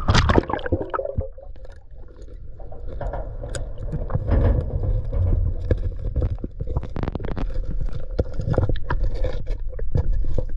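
Water sloshing and gurgling around a person wading through a lake, with a low rumble and scattered knocks and scrapes, many of them from about three seconds in.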